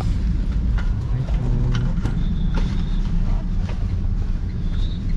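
Steady low rumble of street traffic, mixed with wind buffeting the microphone. A few faint clicks, and a short high tone about two seconds in and again near the end.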